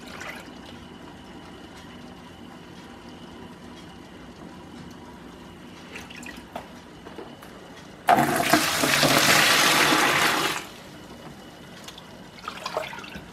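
A plastic jug of water being emptied into a bucket, a loud gushing pour lasting about two and a half seconds that starts about eight seconds in. Before it there are only faint small sounds of the jug being dipped into a bowl of water.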